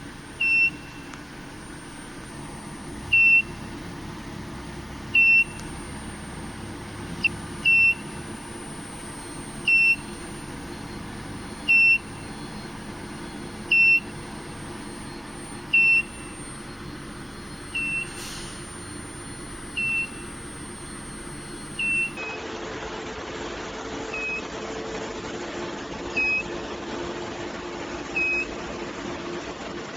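A single-pitched electronic beep repeating about every two seconds, each beep short, over a steady machine hum.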